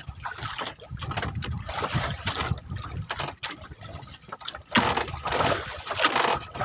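Sea water lapping and splashing against a small fishing boat, an irregular wash of noise with a louder rush about five seconds in.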